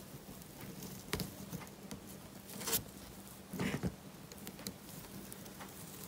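Crochet hook and twine working over a twine rope: soft scratchy rustling with small irregular clicks as stitches are pulled through.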